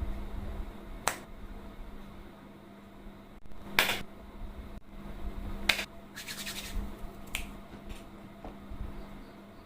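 Silicone pop-it fidget toy bubbles being pressed, giving single sharp pops at irregular intervals, with a quick run of several about two thirds of the way in.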